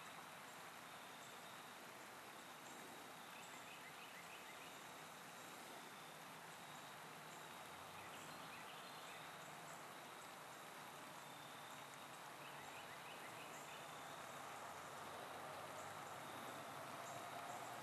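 Faint outdoor ambience: a low, even hiss with scattered faint, short high-pitched chirps.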